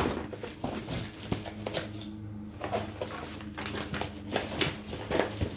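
Cardboard accessory boxes and cases being shifted and set down on a table, a run of light knocks, scrapes and rustles, over a steady low hum.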